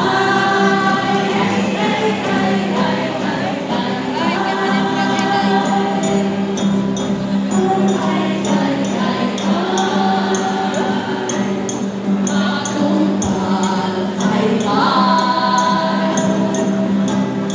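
A choir singing in parts with musical accompaniment. About a third of the way in, a light, regular high tapping keeps time, around three beats a second.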